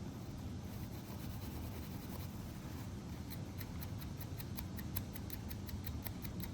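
Light, quick scraping clicks, about six a second and very even, starting about halfway through, from a used Zippo lighter being scrubbed clean of rust and grime.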